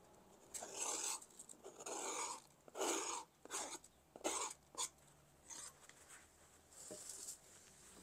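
Soft rubbing and brushing from a hand wiping scraps off a wooden cutting board: a string of short swishes, most in the first half, one more near the end.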